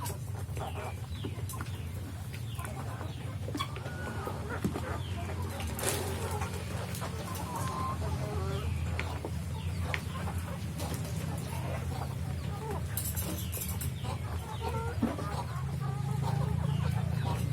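A flock of free-range village hens (ayam kampung) clucking continuously while they eat their feed, over a steady low hum.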